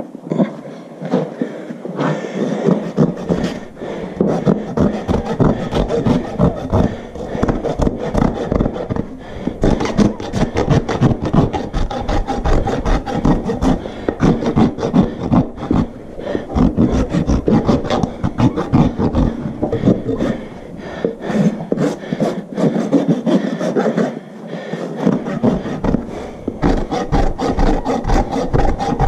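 A farrier's steel hoof rasp filing a horse's hoof wall in rapid back-and-forth strokes. The strokes run on with only brief let-ups, as the hoof is dressed back and the toe rolled for breakover.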